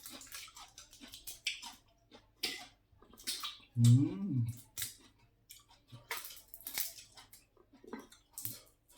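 Irregular sharp clicks and crackles of langoustine shells being broken open and peeled for eating, with a short hummed voice sound about four seconds in.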